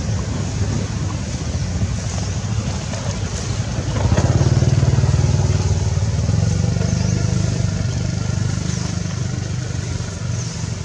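A motor engine running steady and low, with a fine regular pulse. It grows louder about four seconds in and eases off after a couple of seconds.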